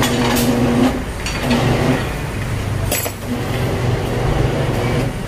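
Tyre-shop workshop noise: a steady machine hum that stops about a second in, over a low rumble, with a few sharp metallic clicks.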